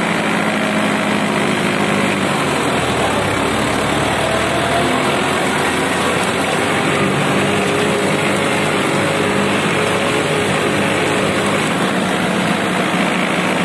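Diesel engine of a Sonalika 750 tractor fitted with an aftermarket turbocharger, running hard under load in gear against the hand brake. The engine note sags about two seconds in, then steadies. This is a load test of the turbo: the engine holds about 1,600 rpm, where without the turbo it dragged down to 850–900.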